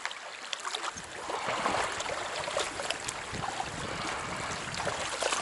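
Running water of a small trout stream, with wind buffeting the camera microphone as a low rumble from about a second in.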